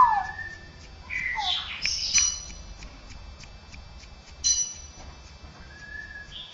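Straw-headed bulbul (cucak rowo) singing its trained mimicry: a few separate gliding whistled notes and harsher calls with overtones. The loudest is a whistle that arches up and falls right at the start, and a harsh call comes about four and a half seconds in.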